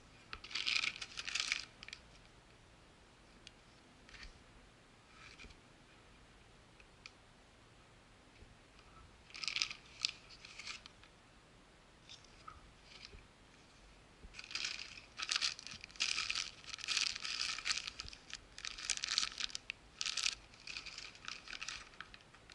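Clear plastic bags crinkling as the multimeter's test leads and cable are handled, in irregular bursts: a short one near the start, another about ten seconds in, and a longer, busier run through the last eight seconds.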